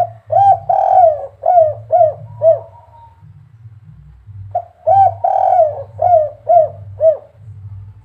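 Spotted dove cooing twice, about four and a half seconds apart. Each phrase is a short opening and a longer note followed by three short 'kuk' notes, the 'kuk 3' song type that keepers prize. A faint low hum runs underneath.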